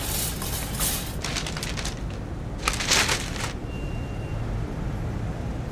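Paper grocery bags rustling and crinkling in a shopping cart, in several short bursts with the loudest about three seconds in, over a low steady rumble.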